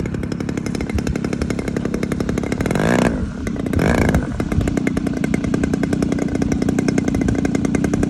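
Model aircraft engine of a radio-controlled Pitts biplane running steadily, with a brief louder surge and a sweep in pitch about three seconds in, as it passes.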